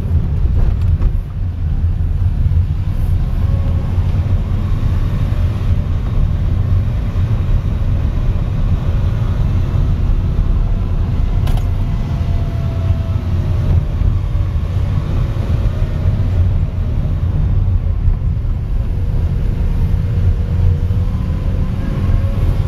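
Car driving on an unpaved gravel road, heard from inside the cabin: a steady low rumble of engine and tyres, with one sharp click about halfway through.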